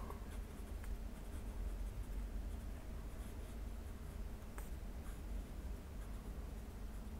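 Fine steel nib of a TWSBI Swipe fountain pen scratching faintly across notebook paper as words are written. The nib is not too smooth and has a tiny bit of pencil-like feedback.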